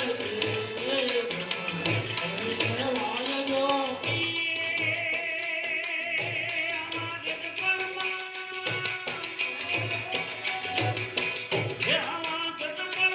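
Devotional music: a melody line over a steady drum beat, with a high wavering melody for a few seconds in the middle.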